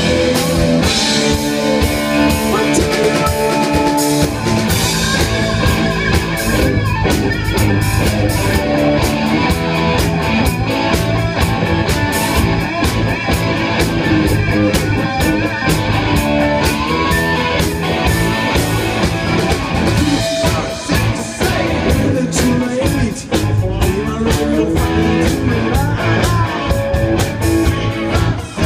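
Live rock band playing: electric guitars and bass over a drum kit, with a steady driving beat.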